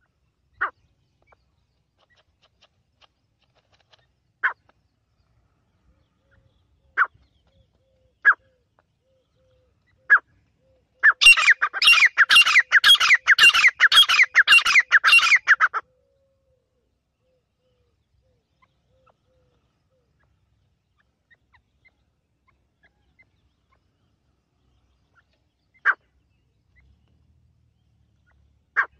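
Grey francolin calling. Single short calls come a few seconds apart, then a fast run of rising calls for about five seconds, the loudest part, then silence before two more single calls near the end.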